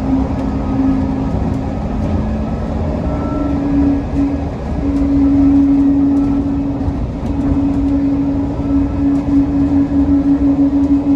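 DFW Skylink automated people-mover train running, heard from inside the car: a steady humming tone over a low rumble. Near the end the loudness pulses quickly and evenly.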